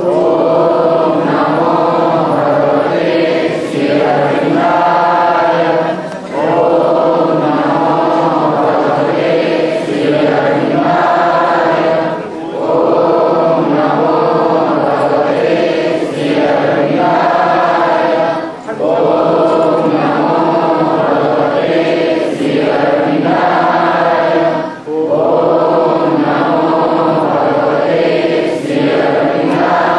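A large group singing a devotional chant in unison, the same refrain repeated in phrases about six seconds long, with a short breath between lines.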